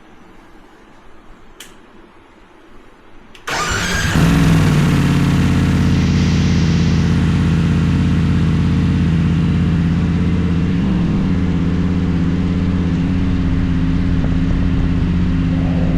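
BMW F850GS Adventure's parallel-twin engine: two short clicks, then the engine starts about three and a half seconds in and settles into a steady idle.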